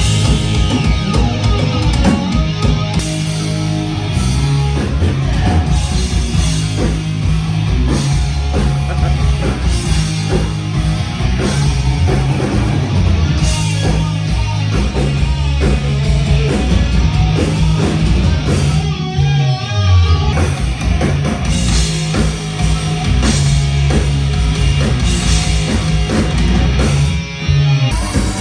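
Loud hard rock music played by a full band: electric guitar, bass and drum kit, with a steady driving bass line and two short breaks, one about two-thirds through and one near the end.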